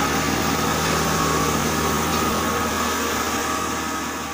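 Maize crushing machine (bharda machine) driven by a 10 HP electric motor through a belt, running steadily with a constant whine over a low hum; the sound slowly fades out near the end.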